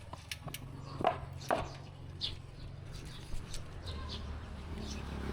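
Several short, high animal calls, each sliding down in pitch, the two loudest about a second in, over a low steady hum.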